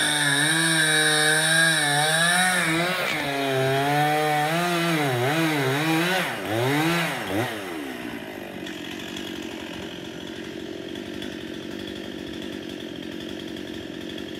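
Two-stroke chainsaw cutting into a stringybark trunk at high revs, the engine note wavering and dipping repeatedly as the bar loads up in the cut. About eight seconds in, the throttle drops and the saw settles to a steady, quieter idle.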